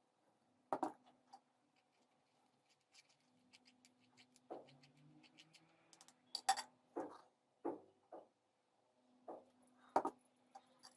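Faint, scattered clinks and knocks of glassware and kitchen utensils being handled, as the blended mixture is portioned into containers, spaced irregularly with the sharpest knocks about two-thirds of the way in and near the end.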